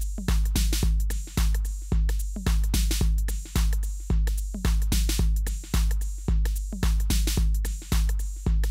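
Background music: a steady electronic drum beat with a deep bass.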